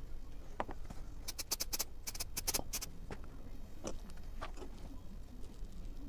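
A quick run of about ten light, sharp clicks in a second and a half, with a few softer taps before and after: small hard objects handled and set down on a workbench, over a faint steady hum.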